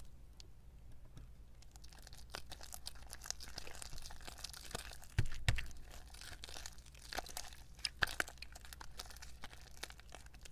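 Hands kneading sticky, freshly activated slime, with irregular crackling and tearing sounds and two low thumps about five seconds in.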